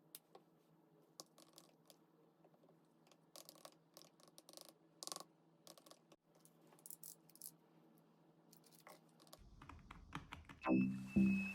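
Faint, irregular light clicks and taps, a few at a time. Music comes in near the end.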